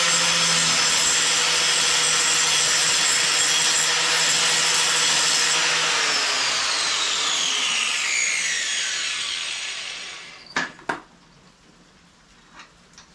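Handheld electric grinder running at full speed with a steady whine, then switched off about six seconds in and winding down, its pitch falling over a few seconds. Two sharp knocks follow, then two faint taps near the end.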